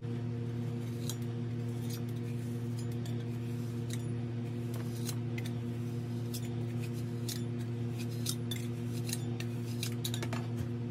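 Scattered light metallic clicks and scrapes from a metal sand-casting flask being handled and emptied of casting sand over a plastic tub, over a steady low hum.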